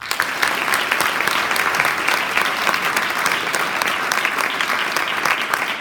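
Audience applauding, many people clapping at once, starting suddenly and holding steady.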